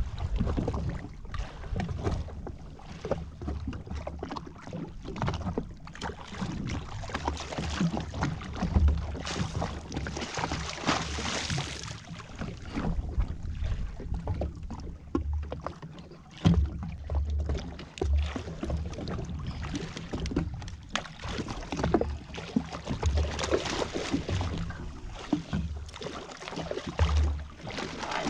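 Wind buffeting the microphone over water slapping against a jetski's hull, with a burst of splashing about ten seconds in as a hooked fish thrashes at the surface beside the craft.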